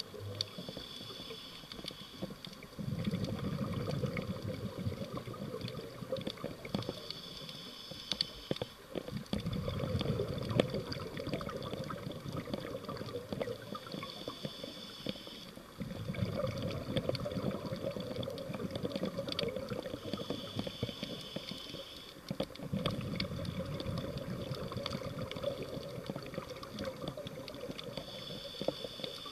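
Scuba diver breathing through a regulator underwater: a short hissing inhale about every six to seven seconds, each followed by several seconds of bubbling exhaust, five breaths in all. Small clicks and crackles run underneath.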